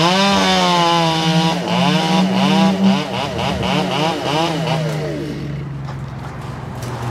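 Two-stroke saw engine revving hard, its pitch wavering up and down as it works through deadwood, then easing off about four seconds in and sliding lower toward idle.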